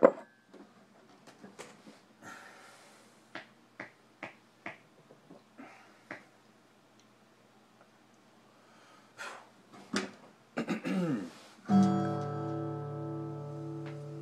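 Scattered quiet knocks, taps and brief scrapes of handling, then, near the end, a chord strummed once on a steel-string acoustic guitar and left ringing, slowly fading.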